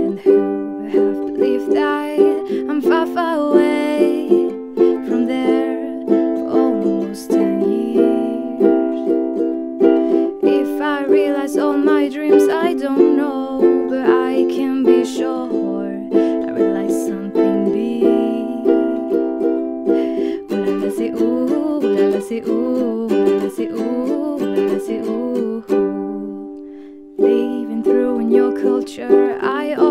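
Ukulele strummed in a steady run of chords, with a picked melody line among them. Near the end the playing dies away briefly, then starts again.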